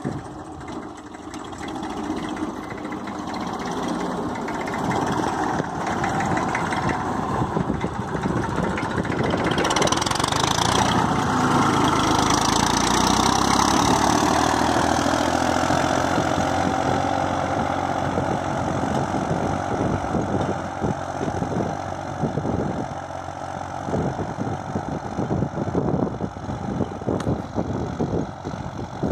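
Massey Ferguson 1035 tractor's three-cylinder diesel engine running under load as it pulls a tine cultivator through tilled soil. It grows louder as the tractor passes close, its pitch drops about halfway through, and it then fades as the tractor moves away.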